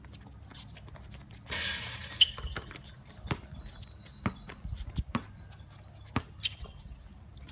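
Basketball bouncing on a hard outdoor court as a player dribbles: a string of single thuds, irregularly spaced, from about two and a half seconds in. Just before them a brief rush of noise ends in a sharp knock, the loudest sound.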